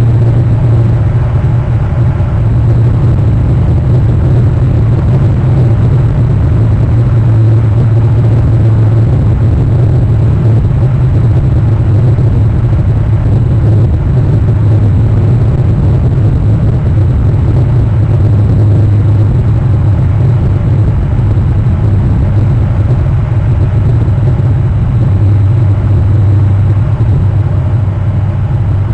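Steady, loud low rumble with a hum in it, unchanging throughout.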